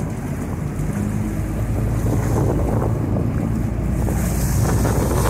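Sport-fishing boat's engine running steadily while trolling, with wind buffeting the microphone and water rushing past the hull. It grows a little louder toward the end.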